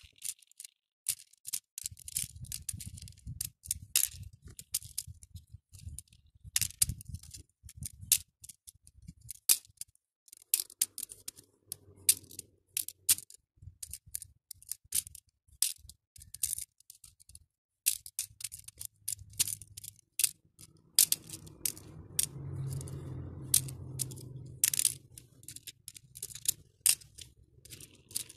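Acrylic beads clicking and rattling against a clear plastic compartment tray and each other as they are picked through and sorted: many irregular, sharp clicks. A low rumble runs under the clicks in two longer stretches.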